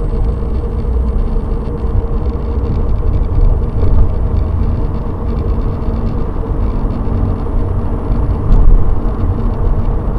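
Steady low road and engine rumble inside the cabin of a Subaru BRZ as it gathers speed, picked up by the dash cam's built-in microphone.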